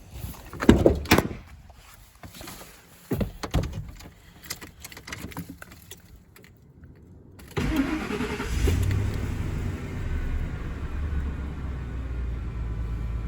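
A few thumps, then the 1998 Ford F-250's engine starts about seven and a half seconds in and settles into a steady idle. This is its first run on fresh oil after the oil change.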